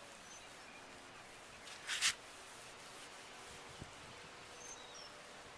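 Faint outdoor background with a couple of tiny, high bird chirps, and one short swish about two seconds in.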